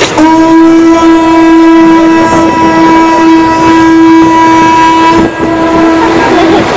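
Conch shell trumpet blown in one long, steady note of about six seconds, sounded as a ceremonial greeting signal; its upper tones drop away about a second before the note ends.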